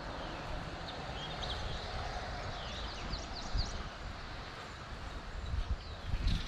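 Riverside ambience: a steady rush of flowing river water with a few faint bird chirps in the first half, and uneven low wind rumble on the microphone.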